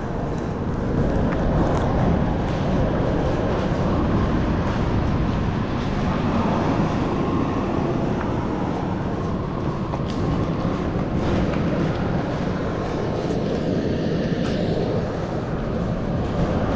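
Steady, loud rumble of a turboprop airliner's engine running, with a faint, even whine over it.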